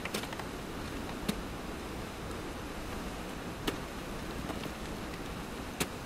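Ice axe picks and crampon front points striking waterfall ice: a handful of sharp, separate strikes, the loudest near the end, over a steady hiss.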